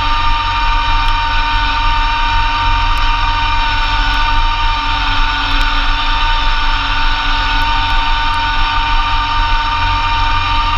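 2004 Massey Ferguson GC2300 compact tractor's three-cylinder diesel running steadily, driving a Blizzard B48 PTO snowblower through heavy wet snow. A steady high whine sits over a low rumble.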